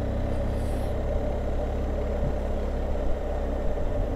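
Motorcycle engine running steadily in third gear at about 35 km/h, a low, even rumble with road noise.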